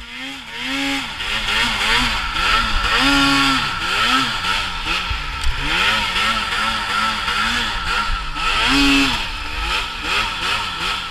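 2018 Arctic Cat M8000 Mountain Cat snowmobile's 800 two-stroke twin running under constant throttle changes in deep snow, revving up and down over and over, with higher rev peaks about three seconds in and again near nine seconds.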